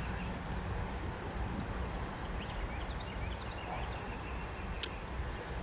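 Outdoor creek-bank ambience: a steady low background rumble with faint, short bird chirps, and a single sharp click near the end.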